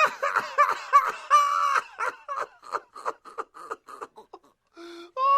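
A person laughing: a long run of short, high giggles, about four a second, fading away, then a brief high-pitched cry near the end.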